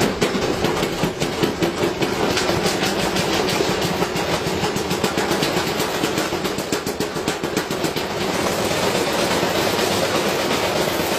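Washing machine running with a heavy object loose in the drum, banging rapidly and repeatedly against it. About eight seconds in, the knocks speed up and merge into a steady, continuous rattle.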